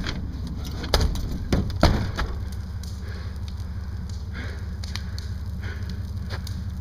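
Fire burning an upturned rowboat: a steady low rumble with scattered small crackles. A few loud knocks come in the first two seconds.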